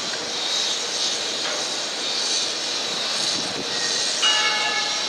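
Steady wash of distant city noise heard from high above the street. About four seconds in, a brief ringing of several high steady tones starts abruptly and stops under a second later.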